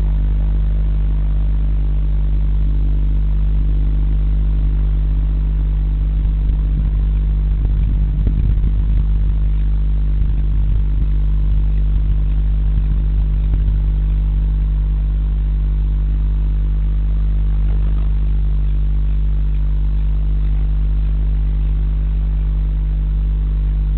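Loud, steady electrical hum with a low pitch near 50 Hz and evenly spaced overtones, typical of mains interference on the nest camera's audio line: the "annoying humming noise".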